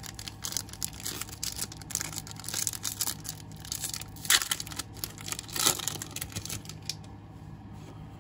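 A foil Bowman Platinum trading-card pack being torn open by hand, the wrapper crinkling and crackling, with the loudest rips about four and a half and five and a half seconds in. The crinkling dies down after about seven seconds, leaving a low steady hum.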